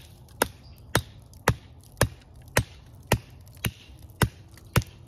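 The flat steel back (poll) of a Nedfoss 15-inch hatchet head hammers a sharpened wooden stake into the ground. There are nine sharp knocks at an even pace of about two a second.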